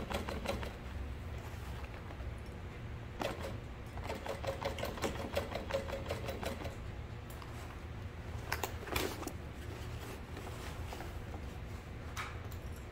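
Juki sewing machine stitching a seam through heavy waterproof canvas: a steady motor hum under a rapid, even run of needle strokes. The stitching thins out after about seven seconds, and a few louder knocks follow around nine seconds in as the bag is handled and turned.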